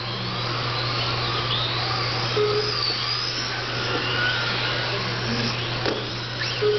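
Several Tamiya TT01 electric RC touring cars racing on carpet, their motors and gears whining in rising and falling pitches as they speed up and brake, over a steady low hum.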